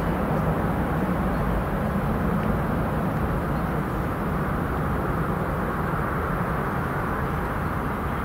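Airbus A319-132 airliner's twin IAE V2500 turbofan engines at climb power, heard from behind as the jet climbs away: a steady rumble that slowly fades.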